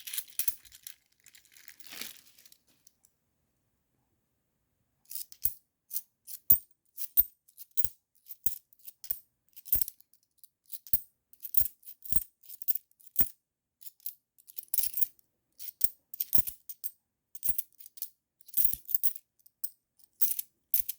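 50p coins clinking against each other as they are sorted through by hand: a quick, irregular run of light metallic clicks that starts about five seconds in.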